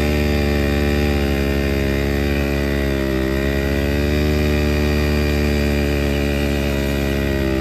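Two small single-cylinder motorcycle engines, one a modified Hero Splendor, held at high revs under load as the bikes pull against each other on a rope, rear wheels spinning in the dirt. A steady, loud engine drone whose pitch sags and recovers a few times.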